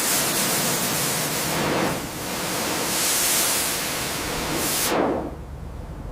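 A loud, steady hiss of a high-pressure spray that starts abruptly, swells and eases, and stops about five seconds in.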